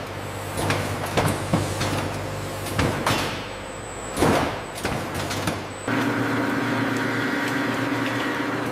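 Processing-line machinery clatters with scattered clicks, knocks and a couple of whooshes. About six seconds in, this gives way to the steady, even hum of a meat grinder's motor running.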